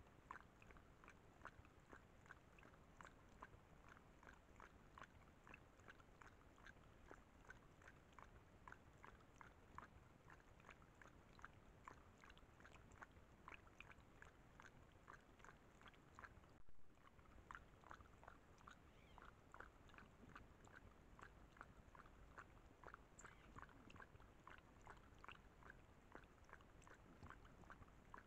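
Puma lapping water from a small pond: a faint, steady run of short wet laps, about three a second.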